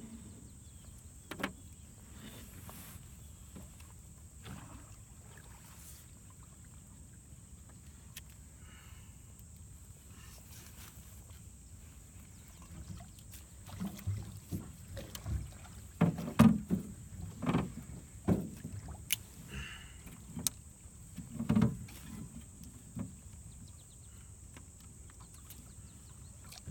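Quiet outdoor background, then a run of about a dozen irregular knocks and thumps inside a small metal boat, starting about halfway through and stopping a few seconds before the end.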